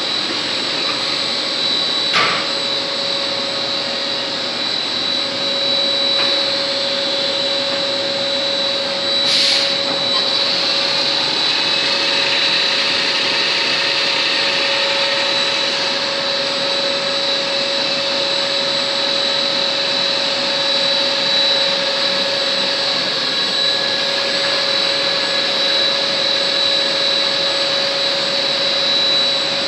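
MINI88 compact CNC automatic lathe running: a steady machine noise with a constant mid-pitched hum and a high whine. There is a sharp click about two seconds in and a short hiss a little over nine seconds in.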